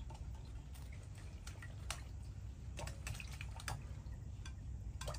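Spring onions and coriander being rinsed by hand in a small pot of water: light splashes and drips, scattered and irregular.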